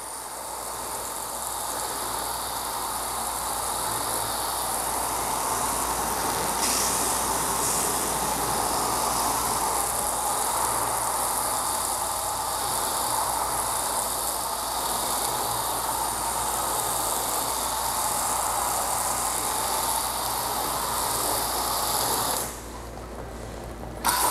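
Maxshine garden-hose foam gun spraying soapy water and foam onto a car's body: a steady rush of spray that cuts off about two seconds before the end and starts again just afterwards.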